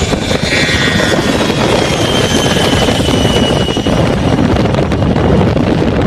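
Amphibious aircraft's engines running loud and close, with a high whine that slowly falls in pitch, over heavy wind buffeting on the microphone.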